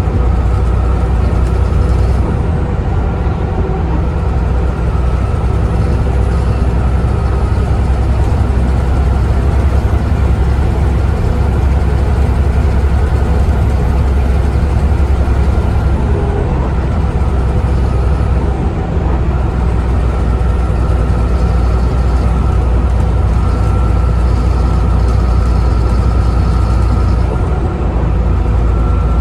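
Volvo B7TL double-decker bus heard from on board, its engine running under way with loud cooling fans blaring. A high whine rises and falls a few times as the bus speeds up and changes gear.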